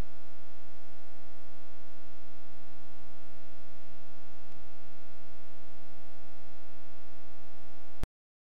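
Steady electrical mains hum with a stack of overtones, at an even level, cutting off abruptly near the end.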